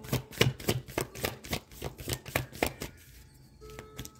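A deck of cards shuffled by hand: a quick, even run of soft card slaps, about three or four a second, that stops about three seconds in.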